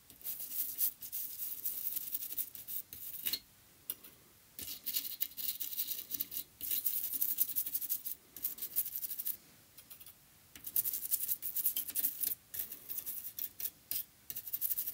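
Toothbrush bristles scrubbing a printed circuit board in quick scratchy strokes, with a few short pauses, working white vinegar into battery-leakage corrosion on the Amiga 4000 motherboard to neutralise it.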